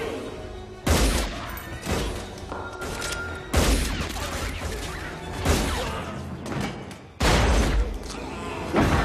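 Film action sound effects: about five loud gunshot-like blasts and heavy impacts, spaced a second or two apart, the one near the end of the second half lasting longer, over background music.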